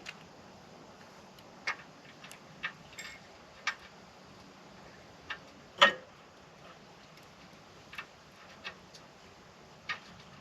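Metal hardware being handled while a trailer tongue jack is mounted: about a dozen light, irregular clicks and clinks, with one louder knock just past the middle.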